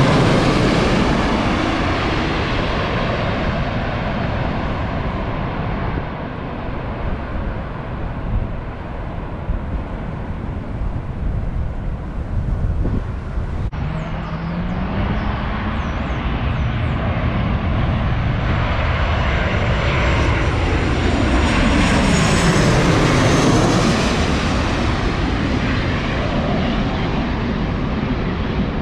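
Airliners passing low overhead on final approach to land: one goes over right at the start and fades away, and a second builds up and passes over about two-thirds of the way through, its pitch falling as it goes by. Wind rumbles on the microphone underneath.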